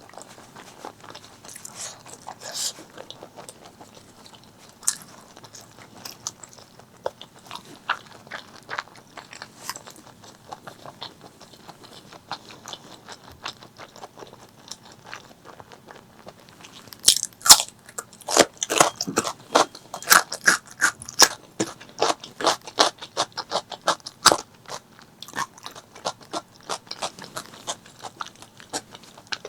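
Close-miked eating of pork leg curry with rice: chewing with scattered wet mouth clicks, then a loud, dense run of crunching bites for several seconds past the middle before it settles back to quieter chewing.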